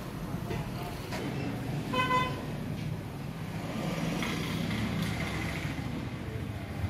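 A single short horn-like toot about two seconds in, over a steady low background rumble.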